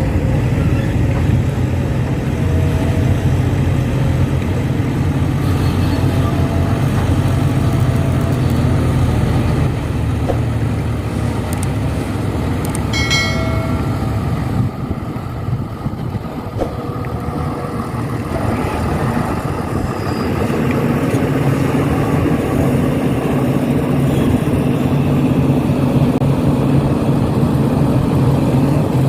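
Heavy-equipment diesel engine running steadily under load at an excavation site, its level easing off around the middle and building again. A brief pitched tone sounds a little before the middle.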